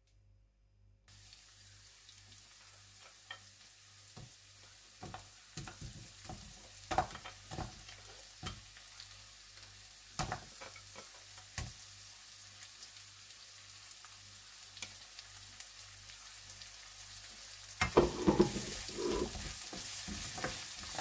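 Chopped garlic, chilli and red onion sizzling in hot oil in a nonstick wok, with a plastic spatula scraping and tapping the pan as it is stirred. The sizzle starts abruptly about a second in, and near the end it gets louder with a burst of brisk stirring.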